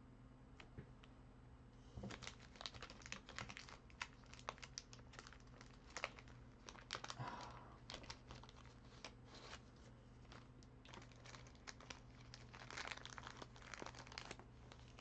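Trading cards in plastic sleeves and holders being handled: crinkling plastic and light clicks of cards and cases, starting about two seconds in, over a faint steady hum.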